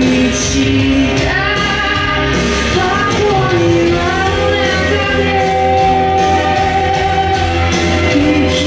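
A song with a singer over a steady bass beat, played loud over a hall's speakers.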